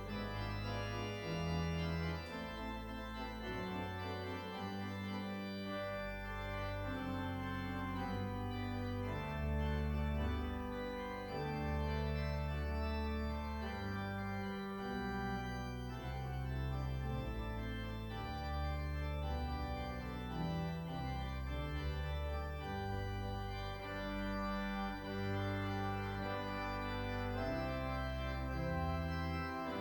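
Organ music: slow sustained chords with bass notes that change every second or two.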